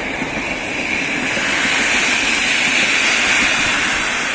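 PKP Intercity passenger coaches passing at speed: a steady rushing noise of wheels on the rails that swells through the middle and begins to fade near the end as the last coach goes by.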